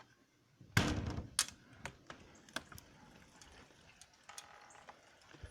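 A house door being opened: a loud clunk about a second in, then several sharp clicks of the latch and handle, and a brief creak a little past four seconds.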